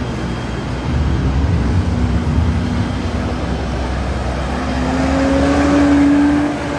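Heavy farm machine's engine running under load, its pitch rising as it revs up from about four and a half seconds in.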